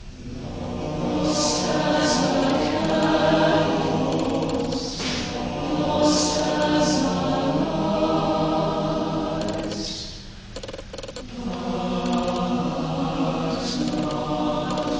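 Mixed choir of men's and women's voices singing sustained chords that swell, with a brief break for breath about ten seconds in before the next phrase.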